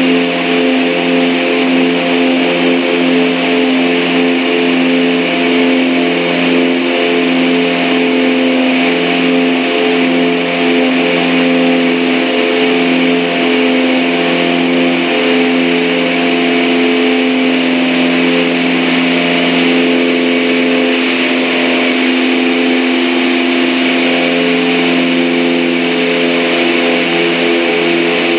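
Cabin noise of a Piper Aztec's twin Lycoming six-cylinder piston engines and propellers at climb power after takeoff: a loud, steady drone with a slow pulsing beat.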